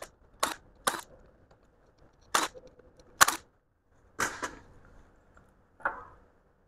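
A string of short, sharp metallic clicks and clacks, about six of them spaced irregularly, as the 10 mm bolts come out of the Mazda 2.2L engine's harmonic balancer and the balancer is handled on the crankshaft.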